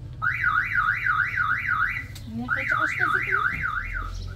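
Electronic siren warbling up and down about three times a second, in two bursts of roughly two seconds with a short break between.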